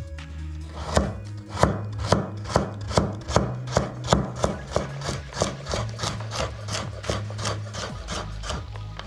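Kitchen knife dicing carrots on a wooden cutting board: a steady run of crisp knocks as the blade cuts through the carrot and meets the board, about two or three a second, starting about a second in.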